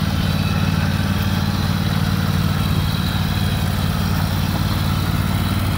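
Husqvarna riding lawn mower's engine running at a steady speed while the mower is driven, an even low hum with no change in pitch.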